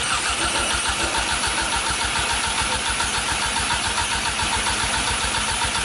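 Car engine being cranked over on its starter with a rapid, even pulsing and not catching, on a first start attempt after a turbo swap.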